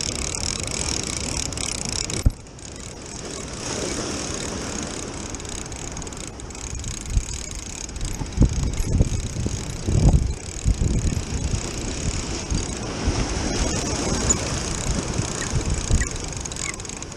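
Spinning fishing reel being wound, its gears whirring, over sea surf washing on rocks, with a sharp click about two seconds in. From about seven seconds on, gusts of wind buffet the microphone in irregular low thumps.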